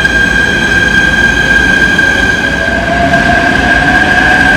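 E129-series electric train moving along the station platform: a steady high-pitched whine over low running rumble, with a second, lower tone that comes in about halfway through and climbs slightly.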